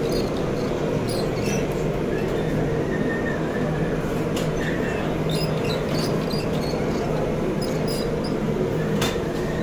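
Bakery conveyor line for flatbread dough running steadily: motor and belt hum with a rumble, under a spiked docking roller, with occasional light clicks.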